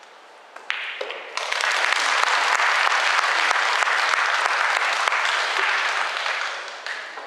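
Audience applauding a won rack of 9-ball: a brief spatter of claps about half a second in, full applause from about a second and a half, dying away near the end.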